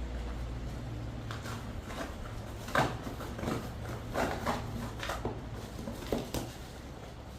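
Irregular knocks, scrapes and rustles of a keyboard's cardboard box and packaging being handled and opened, the sharpest knock about three seconds in, over a low steady hum.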